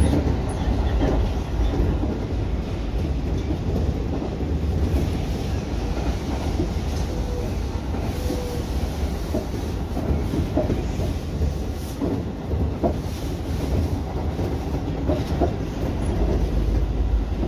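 Commuter electric train running at speed, heard from inside the driver's cab: a steady rumble of wheels on the rails, with scattered clicks from rail joints.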